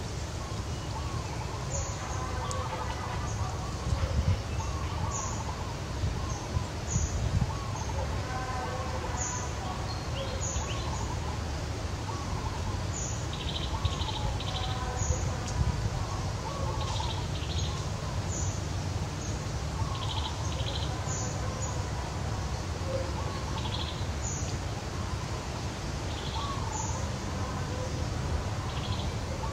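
Birds chirping in the background: short high chirps repeating every second or two, with some quick trills, over a steady low rumble.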